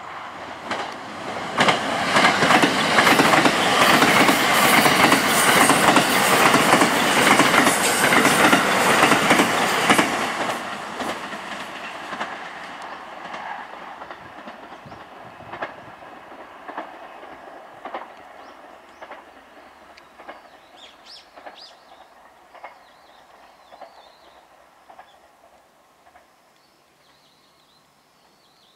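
JR West 289 series electric limited express train passing close by at speed: a loud rush of wheels on rail for about eight seconds. Then the clickety-clack of its wheels over the rail joints fades away as it recedes.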